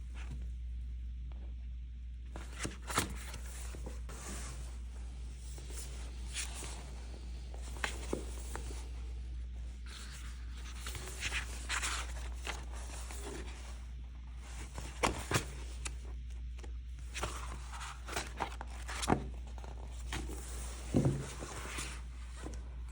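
Book packaging being handled and opened: scattered rustles, taps and short tearing noises, some clustered near the end, over a steady low hum.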